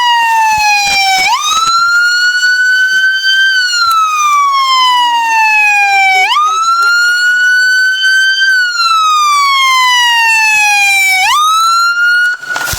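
Police car siren in wail mode, loud and close, sweeping slowly up and down in cycles of about five seconds; it cuts off shortly before the end.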